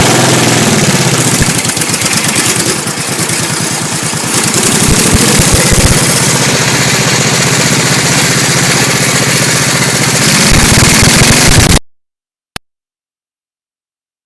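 Racing lawnmower's 20 hp Tecumseh V-twin engine running loud through its custom exhaust, easing off about three seconds in and picking up again a second or so later. The sound cuts off abruptly near the end, followed by a single click.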